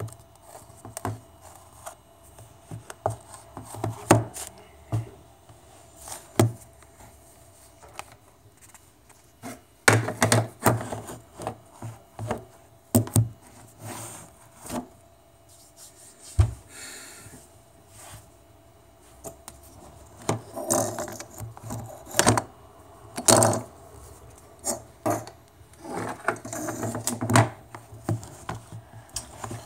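Handling noise from a camera being adjusted by hand: irregular knocks, taps and rubbing of fingers on the device and the wooden desk, some in quick clusters, with quieter gaps between and a low thud about halfway through.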